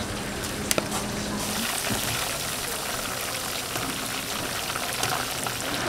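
Deep-fryer oil sizzling: a steady hiss that swells about a second and a half in, with two sharp clicks just before.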